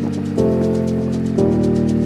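Background music: sustained chords changing about once a second over a steady light ticking beat.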